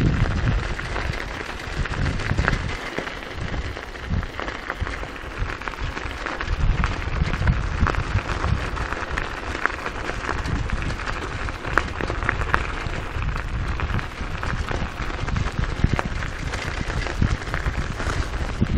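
Bicycle rolling along a gravel road, its tyres crunching and crackling over loose stones, with wind rumbling unevenly on the microphone.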